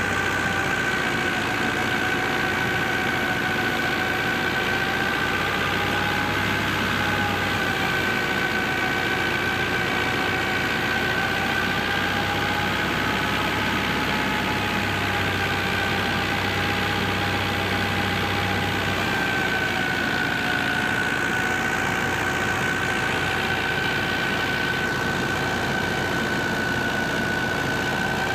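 New Holland Dabung 85 tractor engine running steadily under load, driving a wheat thresher as sheaves are fed in. Engine and thresher make one constant mechanical hum, with a high whine that wavers slightly in pitch.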